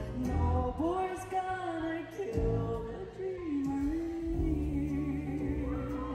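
Female singer singing live into a microphone over instrumental accompaniment, the melody gliding between notes and then settling on one long held note through the second half.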